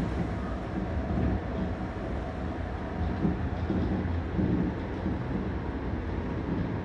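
Cabin noise of a Shonan Monorail suspended car running along its overhead beam: a steady low rumble, with a hum that comes and goes in the middle.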